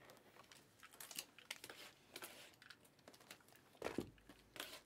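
Faint crinkling and light knocks of shrink-wrapped trading-card boxes being handled and shifted on a table, with a couple of louder knocks near the end.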